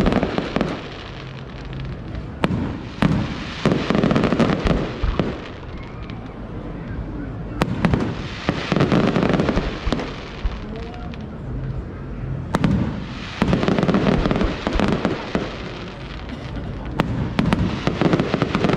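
Fireworks display: shells bursting with single sharp bangs, and dense runs of rapid pops that come in waves every four to five seconds.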